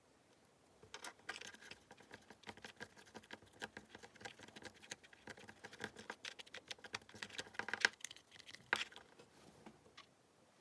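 A rapid patter of small clicks and crackles from a tiny batch of slime being mixed and handled. It starts about a second in and stops near the end, with a couple of sharper clicks just before it stops.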